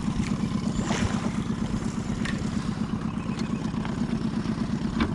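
Small boat's outboard motor running steadily at low speed, with a fast, even beat.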